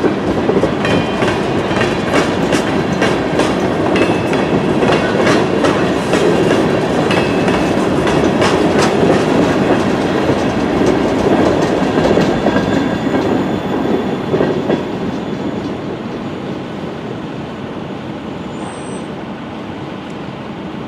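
Loaded freight train of tank cars rolling past, steel wheels clicking over the rail joints under a steady rumble. About two-thirds of the way through the last car goes by and the sound drops away to a quieter fading rumble.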